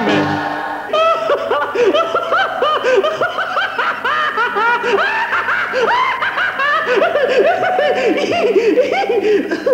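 Hearty laughter from several voices, a dense run of short rising-and-falling 'ha-ha' peals, starting about a second in just after the last chord of an operatic tenor record breaks off.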